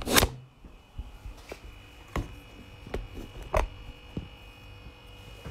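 Handling noise from a phone being picked up and carried: a loud knock right at the start, then a string of lighter knocks and bumps, over a faint steady hum.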